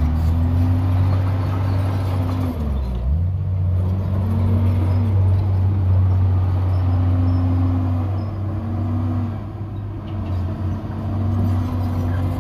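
Komatsu D51PX bulldozer's diesel engine running hard. Its pitch sags and recovers several times as the load on the blade changes.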